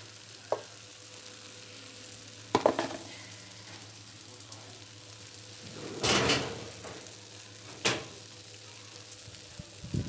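Kitchen clatter of metal pans: a few separate sharp knocks and clanks, with a longer scraping rush about six seconds in, over a steady low hum.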